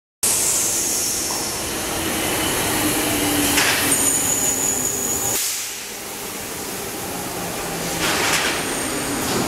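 Circumvesuviana narrow-gauge electric train moving along the platform, its wheels rumbling on the rails. A thin high squeal comes in about four seconds in, and there are brief hissing swishes twice.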